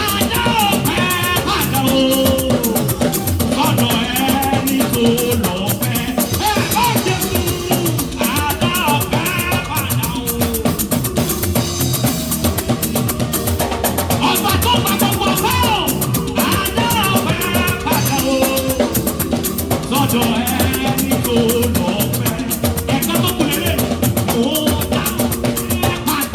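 Lively church praise music: a drum kit and shaker rattles keep up a fast, steady beat under melodic lines that may include singing voices.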